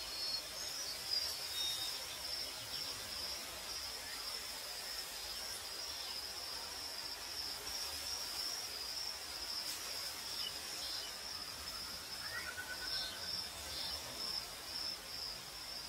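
Crickets chirping in a steady, high, fast-pulsing trill over a soft even hiss of night air. A faint rising call and short trill come in briefly near the end.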